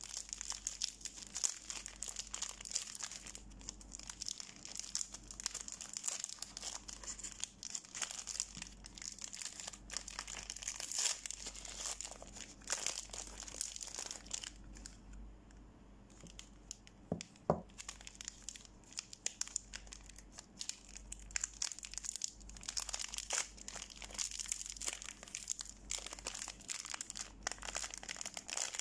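Paper and thin plastic soap wrappers crinkling and tearing as bar soaps are unwrapped by hand, with a short lull about halfway and a single knock just after it.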